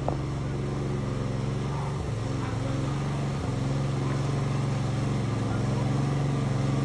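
An engine running steadily at an even speed, a constant low drone.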